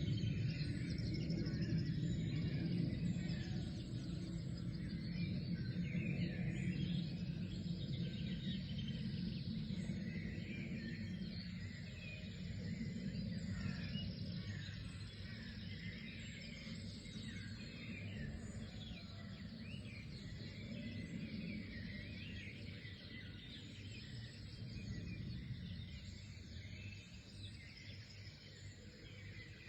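Many small birds chirping and twittering together in a dense chorus of short, quick calls, over a steady low rumble that slowly fades.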